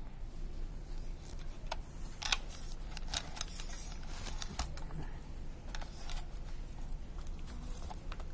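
Irregular light clicks and taps of hand work on a power tiller's recoil starter parts, the sharpest a little over two seconds in, with a low steady hum underneath.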